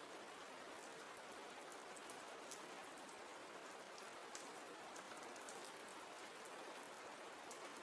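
Faint, steady rain falling, an even hiss with small scattered drop ticks.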